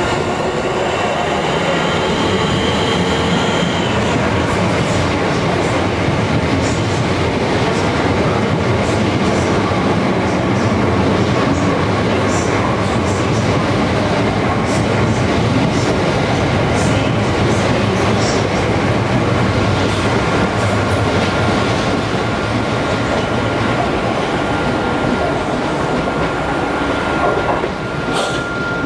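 Electric multiple-unit passenger train running along the platform, a steady rumble of wheels and running gear with a thin constant whine and scattered clicks of wheels over rail joints. The noise drops away near the end as the train clears the platform.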